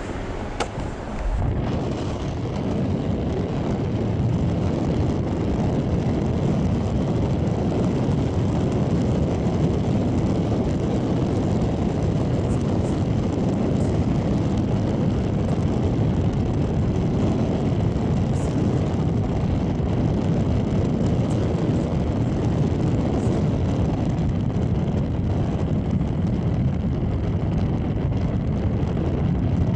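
Steady road and engine noise of a car driving, heard from inside the cabin. It grows louder over the first few seconds, then holds even.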